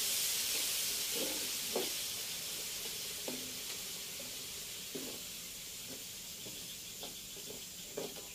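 Pounded spice paste sizzling in plenty of hot cooking oil in a steel wok, the sizzle slowly dying down, with scattered scrapes and taps of a metal ladle against the wok as it is stirred.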